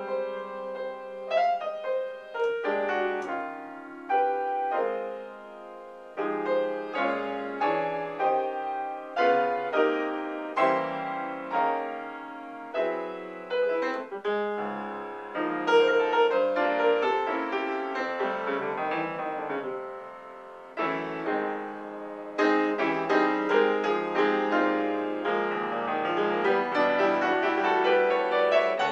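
Solo jazz piano played on a grand piano: struck chords and melodic runs that ring and decay, easing off to a quieter moment about twenty seconds in before picking up more densely.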